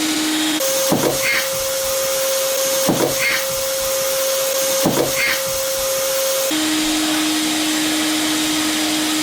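Vacuum cleaner motor running steadily. Its hum steps up in pitch about half a second in and drops back near the end. Three short, louder sounds come about two seconds apart.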